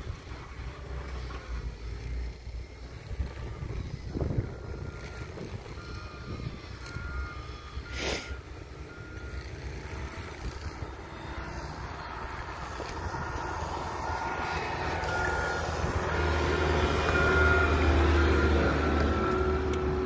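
CAT 906 compact wheel loader's diesel engine running, growing louder as the machine approaches and comes close near the end. A short high beep repeats on and off through the middle and later part, and there is one sharp click about eight seconds in.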